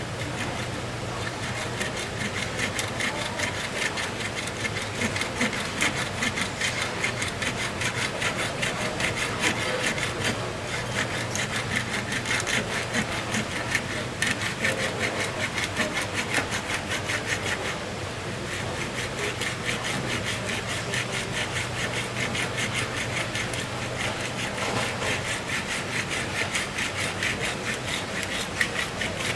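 Fast, even rasping strokes of a hand tool worked against a large skin-on marlin section on a wooden cutting board, with a low steady hum underneath.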